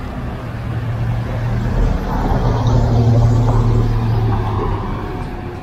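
A van driving past on the street, its engine hum and tyre noise swelling to a peak about halfway through, then fading as it moves on.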